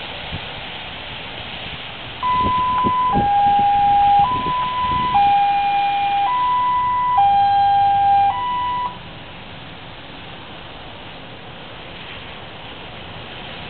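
Emergency vehicle siren in two-tone hi-lo mode, alternating between a higher and a lower note about once a second, starting about two seconds in and cutting off about nine seconds in. Under it, the steady hiss of tyres on a wet road.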